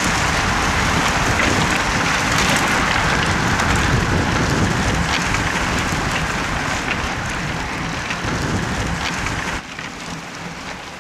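Heavy rain pouring down, with a low rumble of wind on the microphone. The sound drops away abruptly near the end.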